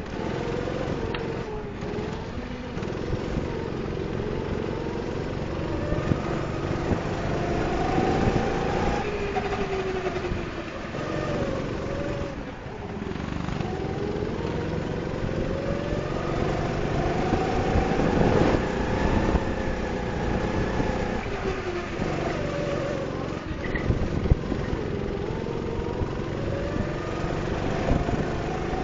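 Go-kart engine heard from on board, its pitch rising and falling again and again as the kart accelerates and lifts off through the corners. Midway through, the engine drops away briefly before picking up again.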